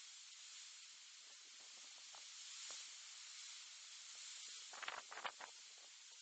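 Near silence: the steady hiss of the camera microphone's noise floor, broken by a brief cluster of a few faint clicks about five seconds in.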